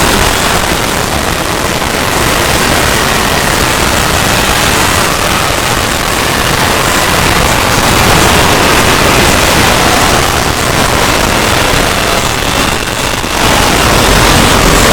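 Heavily effects-processed sound effect: a loud, steady wash of harsh, distorted noise with no clear pitch, dipping briefly about thirteen seconds in.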